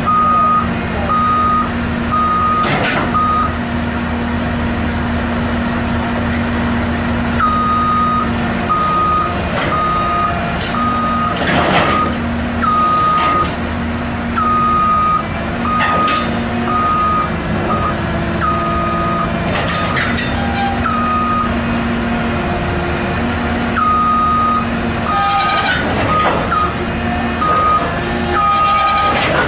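Heavy diesel machine running with its reversing alarm beeping about once a second, the beeping stopping and restarting a few times. Several sharp knocks or clanks come through over the engine hum.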